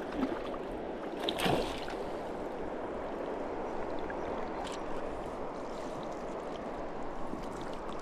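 River water rushing steadily, with a couple of brief faint clicks about a second and a half in and near the middle.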